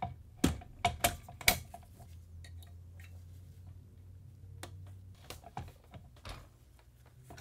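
Small steel parts of a VZ 2008 rifle clicking and clacking as the safety lever is worked out of the receiver during disassembly: four sharp clacks in the first two seconds, then scattered lighter clicks.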